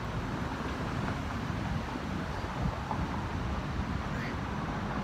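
Wind buffeting the microphone: an uneven, fluttering low rumble with no distinct events.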